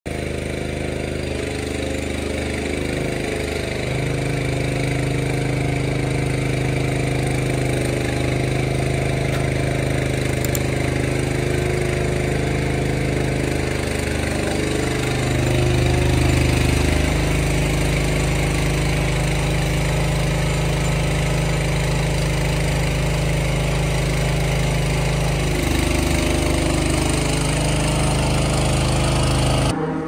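A motor or engine running steadily with a low hum, its pitch shifting a few times, then cutting off abruptly near the end.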